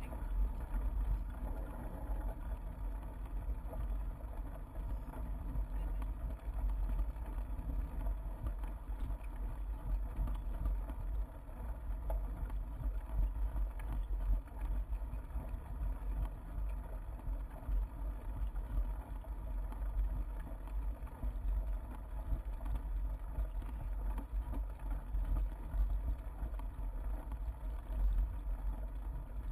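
Steady low rumble and jostling of a bicycle rolling over a bumpy grass trail, with wind buffeting the GoPro's microphone.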